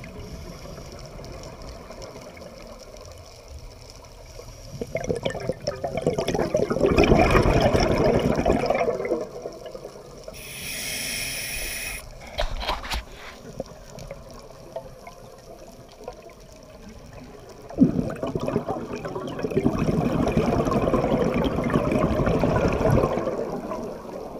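Scuba regulator breathing heard underwater: two long, loud bursts of exhaled bubbles with a shorter high-pitched hissing inhale between them, and a few faint clicks.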